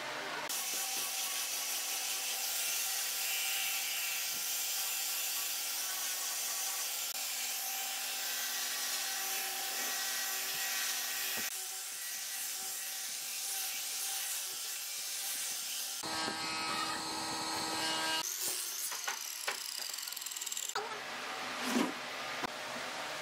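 An angle grinder with a sanding disc sanding pine, a steady high hiss of abrasive on wood that runs in several stretches with short breaks. Near the end there is a single loud wooden knock.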